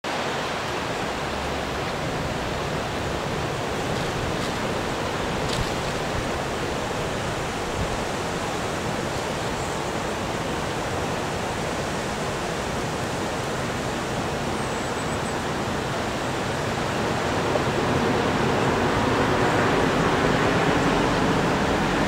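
Steady rushing noise of a spring snowstorm, wind and falling snow, getting louder toward the end.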